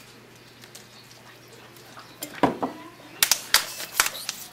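Handling noise of a rubber balloon being stretched over the neck of a plastic water bottle: a knock about two and a half seconds in, then a quick run of sharp clicks and crinkles of plastic and rubber near the end.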